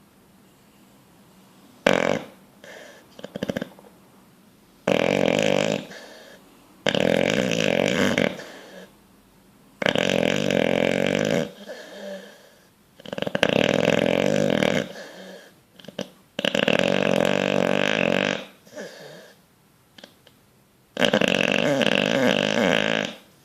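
Bulldog snoring in deep sleep: a short snore and then six long, loud snores, each one to two seconds, coming every few seconds.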